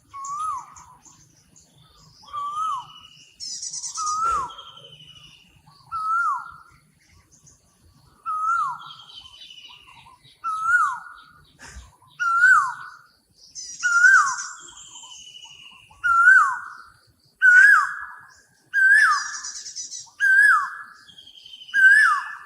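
Forest birds calling: one bird repeats a short note about every two seconds, each note rising and then dropping sharply, about a dozen times and creeping slightly higher in pitch toward the end. Higher chirps and twitters from other birds sound around it.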